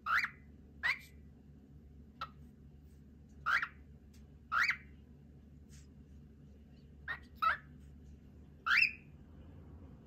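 Cockatiel giving a series of short chirping calls, about eight in all, each a quick up-and-down sweep, with pauses of a second or more between them.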